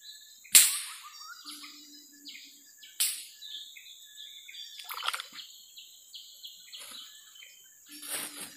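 Birds chirping with many short, high calls, broken by two sharp, sudden knocks, the loudest sounds, just after the start and about three seconds in.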